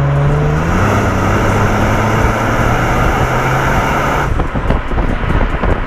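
Motor vehicle running, a steady engine hum over road noise, stepping up slightly in pitch about a second in; about four seconds in the hum drops away, leaving rougher noise.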